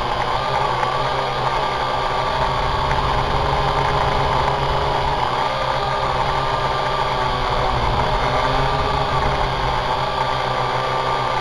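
Syma X8HG quadcopter's four motors and propellers running in flight, a steady whine that wavers slightly in pitch, heard close up through the drone's own onboard camera.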